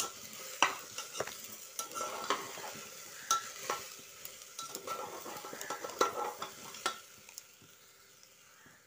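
Long metal spatula stirring and scraping against the inside of a pressure cooker as broken wheat and vegetables fry in oil, with a light sizzle; the knocking strokes stop about seven seconds in.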